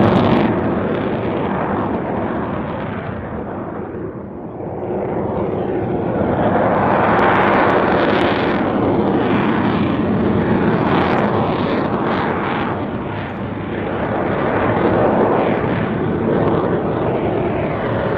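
Fighter jet's engine noise as it maneuvers overhead: a continuous rumble that fades about four seconds in, swells again with a crackle, dips once more past the middle and rises again near the end.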